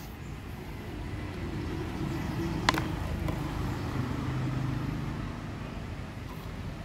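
Low, steady engine rumble of motor traffic, with one sharp click a little under three seconds in.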